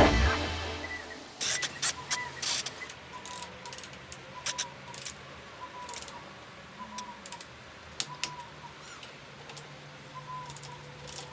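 Scattered light clicks and taps at irregular intervals, loudest in a cluster about one and a half to two and a half seconds in, over a faint hum with soft recurring chirps.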